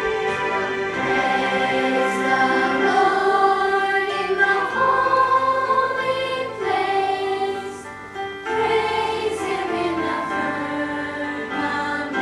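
A choir singing slow, sustained chords over instrumental accompaniment, with a short dip in loudness about eight seconds in.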